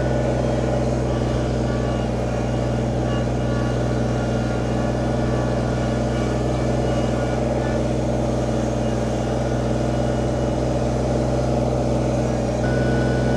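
Kubota BX25 compact tractor's three-cylinder diesel engine running at a steady speed as the tractor is driven slowly.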